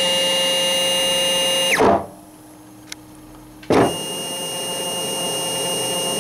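8-wire stepper motor spinning unloaded at high speed, a steady whine of several pitches. It winds down with a falling pitch and stops a little under two seconds in, leaving a faint hum and a single click, then starts again abruptly with a loud burst just under four seconds in and whines steadily on.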